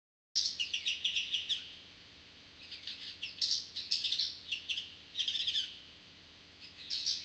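Sparrows chirping: runs of short, rapid cheeps in bursts of a second or two with brief pauses between, starting abruptly after a moment of silence.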